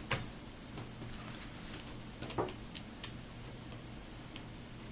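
Small screwdriver tip clicking and ticking against a laptop fan's cable connector as it is worked back and forth to loosen it from the system board: a few sharp, irregular ticks, the loudest about two and a half seconds in, over a faint steady low hum.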